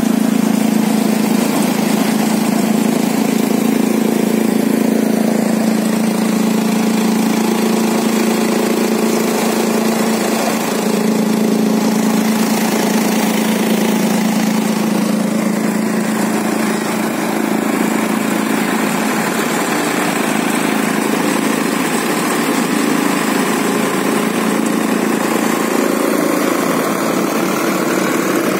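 Sonalika DI 35 tractor's diesel engine running steadily under load, belt-driving a crop thresher as stalks are fed in and chaff is blown out. The combined engine and thresher noise holds as a steady low drone with little change.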